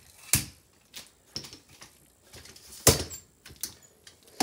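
Sharp clicks and knocks from handling computer hardware: two loud ones, about a third of a second in and near three seconds, with a few lighter taps between.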